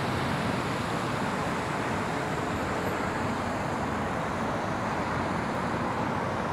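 Steady road traffic noise: cars driving on the surrounding city streets.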